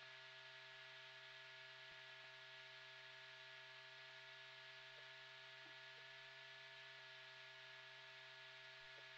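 Near silence: only a faint steady hum with hiss, the background noise of the film soundtrack.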